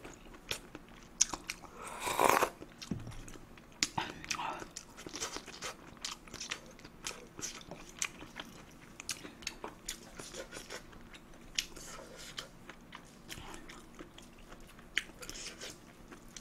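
Close-miked chewing and mouth sounds: many small wet clicks and smacks as a mouthful of food is chewed, with a louder noisy burst about two seconds in.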